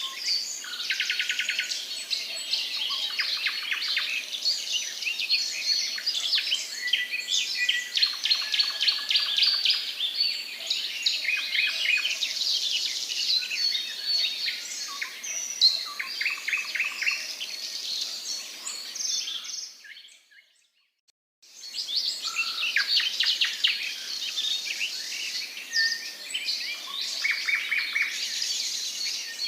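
Mixed chorus of songbirds chirping and singing, many overlapping calls and rapid trills. It fades out to near silence for a second or two about two-thirds of the way through, then resumes.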